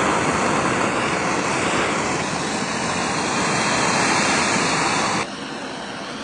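Gas torch burning with a steady rushing hiss as it heats the steel axe head. About five seconds in, the hiss drops suddenly to a lower, quieter level.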